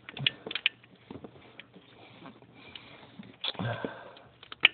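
Scattered light clicks and taps of hands handling things close to the microphone, with a short sniff about three and a half seconds in and a sharper click near the end.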